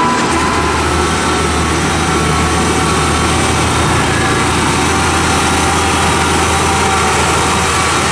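A UD Quester 280's GH8E diesel engine running steadily, with a constant low drone.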